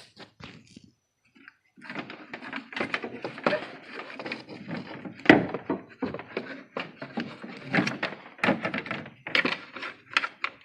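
Dense metal clunks, knocks and scraping as a new alternator is worked into its mount in the engine bay, with the loudest knock about halfway through.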